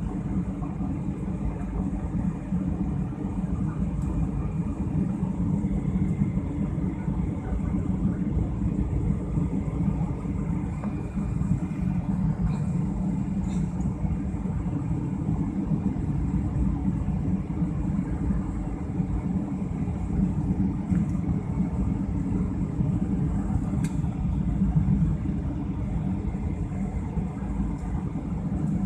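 Steady cabin noise of a jet airliner descending on approach to land: an even, low rumble of engines and airflow heard from inside the cabin, with a couple of faint clicks about halfway through.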